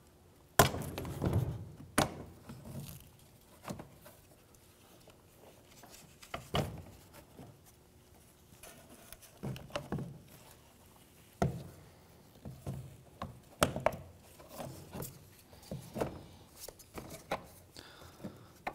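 Plastic grille and bumper trim parts knocking and rubbing as they are handled and lined up by hand: scattered clicks and thunks, the loudest a sharp knock about half a second in.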